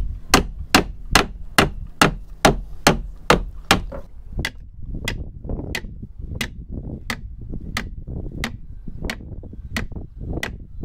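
Hammer blows knocking a new timber frame into place in a wooden boat's hull, struck in a steady rhythm. The blows come about two and a half a second for the first four seconds, then turn lighter and slower, about one every two-thirds of a second.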